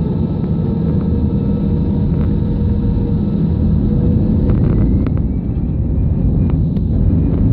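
Airbus A319 jet engines at high thrust, a loud steady rumble with a faint whine, with a few light cabin rattles about two-thirds of the way through.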